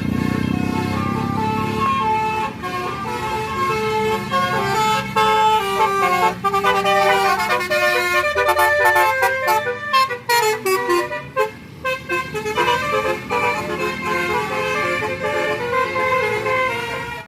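Tourist bus sounding its Basuri telolet horn: a multi-tone electric horn playing a fast tune of short stepped notes, with the bus engine running underneath.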